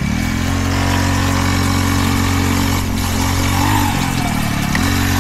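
Small dirt bike engine running at a steady speed, easing off briefly a little past the middle and then picking back up.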